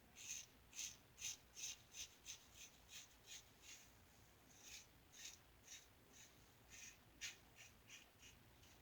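Single-edge safety razor (New Gem Lather Catcher with a Gem blade) scraping through lathered stubble in short, faint strokes, about two to three a second, with a short pause midway. The blade is near the end of its life: the shaver thinks it is time to change it.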